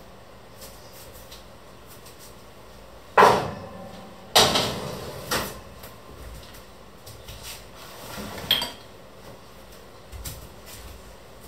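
Kitchenware being handled on a wooden worktop: a few sharp clattering knocks and clinks, one with a brief metallic ring, then a soft thud near the end.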